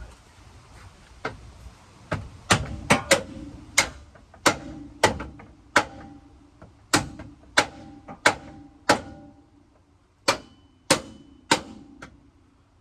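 Hammer blows on the steel of a bent, stuck front bumper being knocked off a third-generation Ram pickup's frame. They come as about fifteen irregular strikes, each ringing briefly, with a pause a little before the end.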